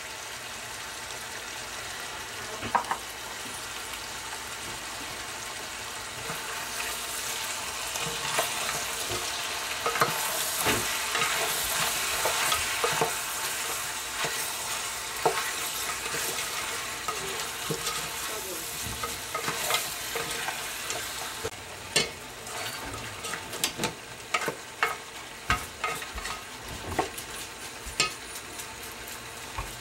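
Goat meat sizzling as it sautés in a stainless steel pot, stirred with a spatula. The sizzle swells through the middle, and in the last third the spatula scrapes and knocks against the pot many times.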